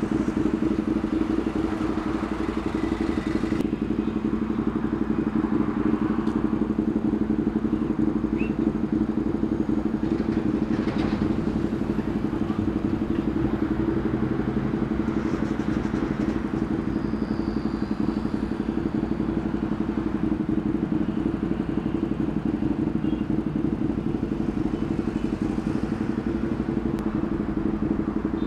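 Sport motorcycle engine idling steadily, with no revving.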